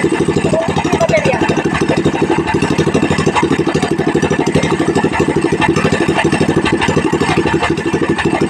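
Pro-Quip 18 hp gasoline engine running steadily at an even speed, with a fast, regular firing pulse.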